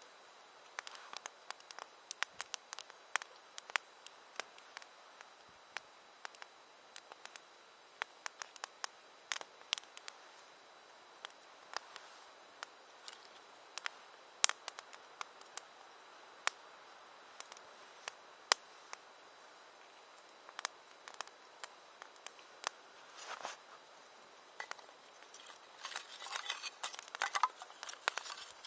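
Wood campfire crackling: irregular sharp pops and snaps over a faint hiss, with a denser run of clicks and scraping near the end.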